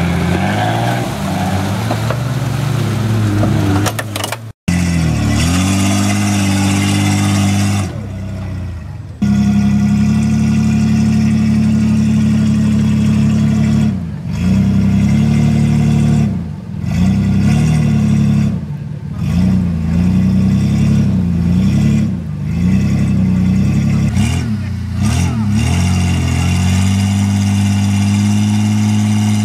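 Off-road competition 4x4 engines revving hard under load: first a mud-wading Jeep Cherokee, then, after a brief cut, a modified short-wheelbase 4x4 clawing up a steep muddy bank. Its engine speed repeatedly sags and rises again every two to three seconds as the tyres fight for grip.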